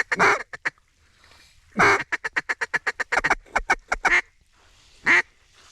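Mallard hen duck call blown to ducks approaching the decoys. A short run of quick quacks at the start is followed, about two seconds in, by a longer lead note and a fast run of a dozen or so quacks, with a single quack near the end.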